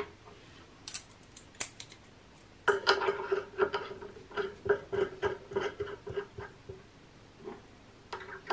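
Collet nut being threaded by hand onto the nose of a 2.2 kW water-cooled CNC spindle: metal clicking, a couple of single clicks and then a quick run of several clicks a second with a faint ringing tone.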